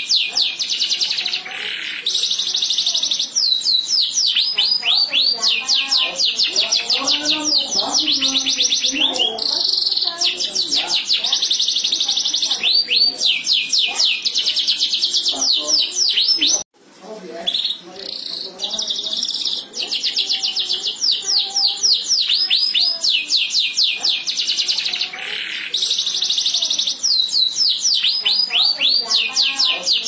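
Domestic canary singing a long, loud song of fast repeated trills and rolling sweeps, with some short held buzzy notes. The song breaks off for a moment about seventeen seconds in, then carries on.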